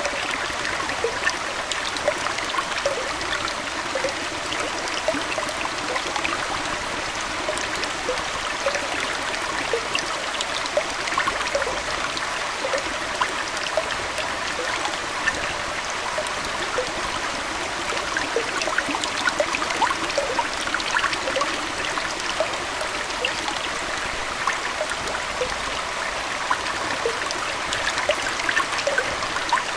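Aquarium water trickling and bubbling steadily, dotted with many small gurgles and drips.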